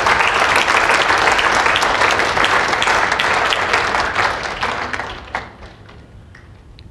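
Audience applauding at the close of a talk, a dense patter of many hands clapping that dies away about five seconds in, leaving a few scattered claps.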